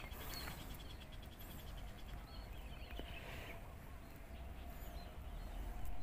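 Faint, agitated calls of a parent woodpecker scolding an intruder at its nest, over the low rumble of a handheld phone camera being handled during a climb up the tree.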